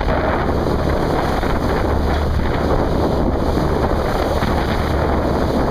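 Steady wind rumble on the microphone over the rush of a small boat running through rough sea, as a breaking wave throws spray over the bow.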